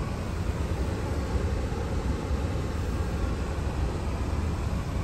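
Steady road noise and low engine rumble inside a moving 2017 Hyundai Tucson.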